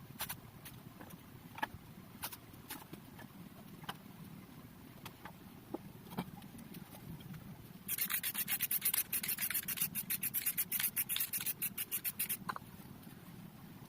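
Rapid back-and-forth rubbing strokes on a surface, about nine a second for roughly four seconds, starting about eight seconds in. Before them come scattered light clicks and taps from handling.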